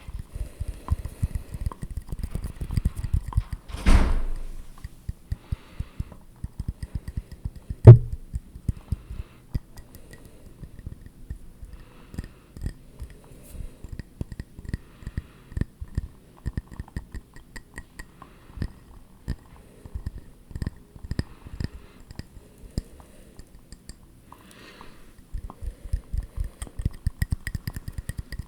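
ASMR tapping and scratching on objects close to the microphone: many quick, light, irregular taps, with a louder brushing sound about four seconds in and one sharp knock about eight seconds in.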